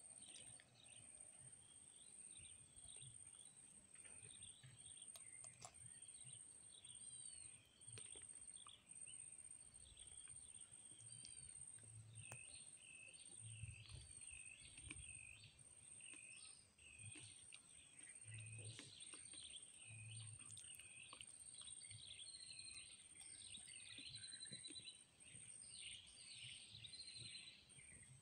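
Faint outdoor ambience of birds chirping and calling over and over, the calls coming more thickly in the second half, over a steady thin high-pitched tone and a few soft low thuds.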